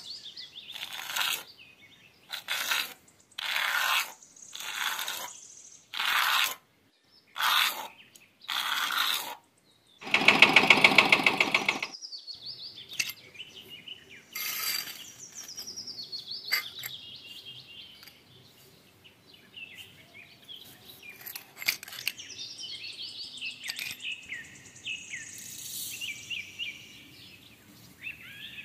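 A run of short scraping swishes, about one a second, as a miniature hoe scrapes dry cement powder out of a toy trolley; about ten seconds in, a louder two-second rush of dry sand pouring from a small metal bucket. Birds chirp through the rest.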